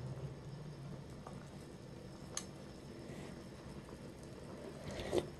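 Quiet kitchen background: a faint steady hiss with one light click about two and a half seconds in.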